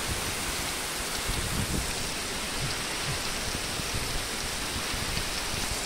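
Heavy rain falling steadily on open ground, an even hiss.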